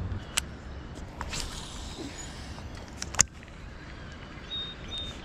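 Fishing rod and baitcasting reel being cast and worked: a few sharp clicks and knocks, the loudest about three seconds in, with a brief hiss about a second and a half in.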